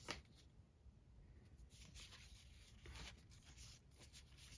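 Near silence, broken by a few faint, brief rustles of trading cards being slid through the hands.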